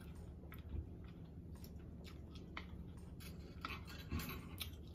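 Close-miked chewing and mouth sounds of a person eating fried catfish and rice, with scattered soft clicks and smacks at an uneven pace.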